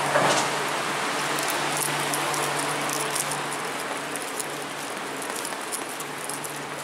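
Steady low hum and hiss of a Bombardier rubber-tyred metro train standing at the platform, with a short thump near the start and scattered faint high ticks.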